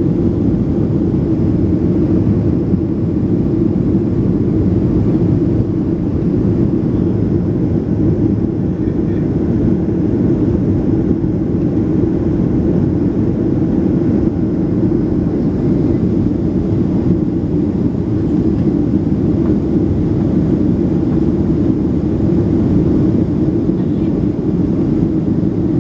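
Boeing 737-800's CFM56 jet engines and rushing air, a steady low rumble without change, as heard from inside the cabin.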